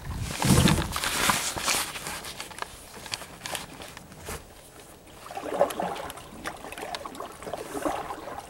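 Kayak paddle strokes: the blades dipping and splashing in the water, with scattered small clicks and drips. The loudest splashing comes in the first two seconds, and another run of strokes starts about five seconds in.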